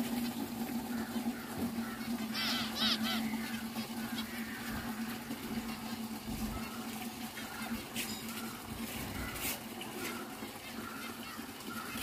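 A flock of zebra finches calling in short repeated notes, with a burst of calls about two and a half seconds in and scattered smaller calls after. A low steady hum underneath fades out around the middle.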